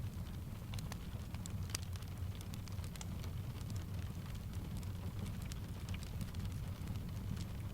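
Steady rain blended with a crackling wood fire. Scattered sharp crackles sit over a low, steady rumble.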